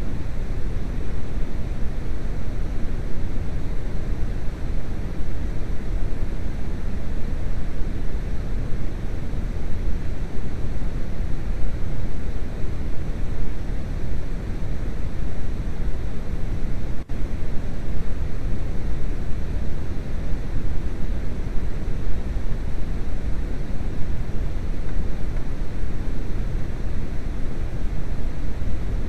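Steady low rumbling noise with no distinct rhythm, cut by a momentary drop about seventeen seconds in.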